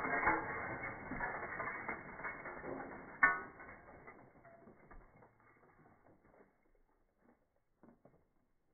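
Shattered fluorescent-tube glass crackling and tinkling in a trash can after claw-hammer blows, with one sharp crack about three seconds in. The clatter then thins to a few scattered clicks of settling glass.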